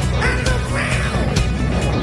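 Loud rock-style music with a steady beat.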